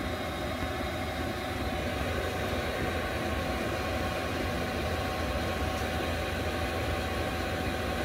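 Chinese diesel air heater running steadily at working temperature, its blower pushing hot air through the ducting: a constant low hum with a faint steady whine over it.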